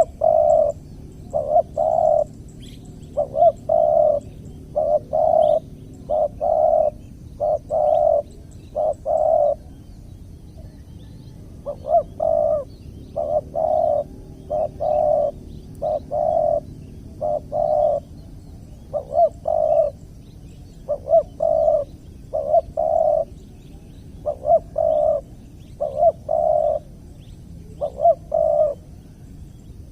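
Spotted dove (tekukur) calling: short, low coos repeated in quick runs of two to four notes, with brief pauses between phrases and a longer pause near the middle.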